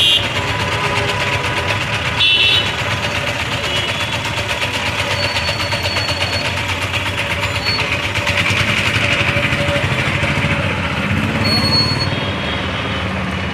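Busy street traffic: engines running steadily, with a vehicle horn tooting at the start and again about two and a half seconds in.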